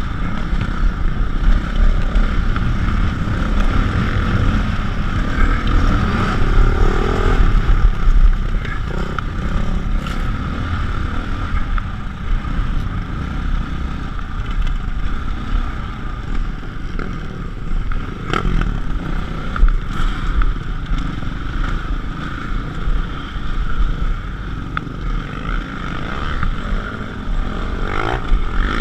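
Dirt bike engine running under load on a rough dirt trail, heard from on the bike, with a few sharp knocks scattered through.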